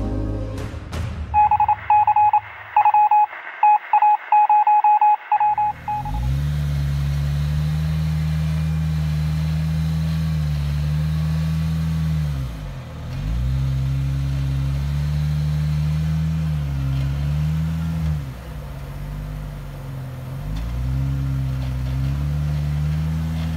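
A rapid, uneven string of loud electronic beeps at one pitch for about four seconds. Then a Jeep Wrangler's engine runs as it crawls up a rock ledge, its note sagging and picking back up several times.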